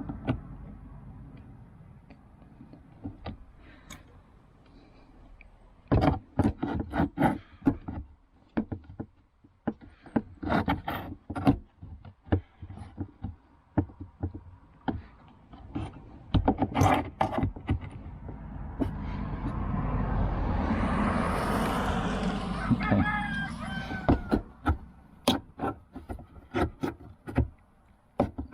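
Irregular knocks and clatter of wood being struck and worked loose, a screwed-together chicken-coop step being knocked apart, with a few seconds of scraping about two-thirds through.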